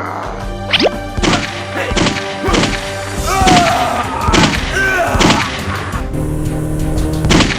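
Background music with a string of thuds and knocks, about eight in all, plus a few short squeaky sliding-pitch sounds in the middle.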